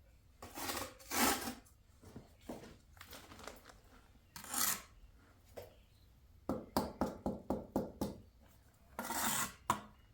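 Steel trowel scraping and spreading wet mortar on brick in several rasping strokes, with a quick run of about eight light taps about two-thirds of the way through.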